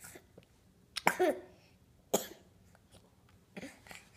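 Baby giving a short cough and a couple of brief fussy vocal sounds while being spoon-fed, with near quiet between them.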